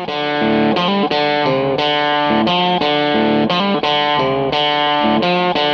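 Intro music: distorted electric guitar playing a riff of sustained chords that change about every half second.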